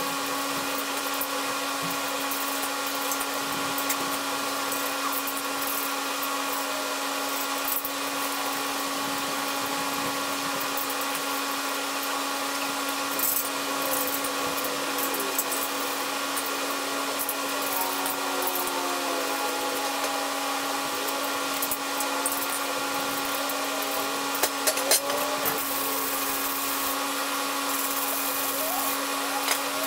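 Steady electric motor hum running throughout, with scattered metallic clicks, a few short squeaks and a brief cluster of knocks a little before the end, as bolts are worked loose from a welded steel frame.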